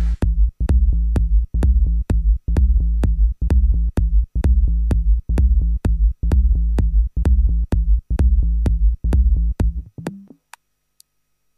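Minimal techno with a drum-machine beat: a deep, steady bass under a sharp click about two and a half times a second. It stops about ten seconds in, with a couple of faint last clicks.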